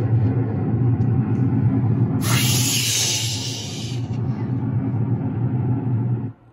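Cartoon rocket-launch sound played through a computer's speakers: a steady low rumble, with a loud hiss joining it from about two seconds in for about two seconds, then the whole sound cutting off suddenly near the end.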